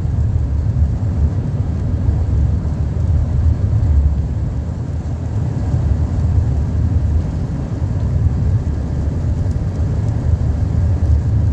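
Car cabin road and engine noise while driving at about 55 mph, a steady low rumble.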